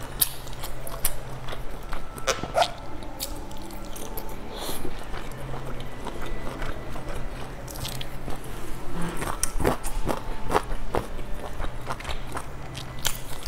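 Close-miked chewing of a pan-fried dumpling dipped in chili sauce, with many irregular mouth clicks.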